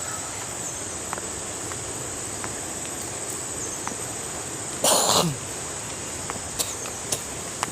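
Steady high-pitched insect chorus, broken about five seconds in by a person sneezing once: a short loud burst that trails off in a falling voice.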